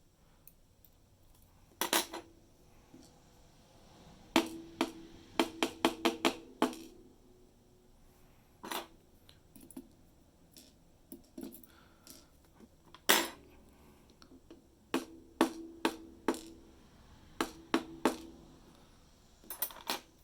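Small metal lock parts of a dimple-lock cylinder knocked and tapped against a hard work surface while its key pins are worked out: sharp metallic clicks, each with a short ring, in irregular clusters, several in quick runs.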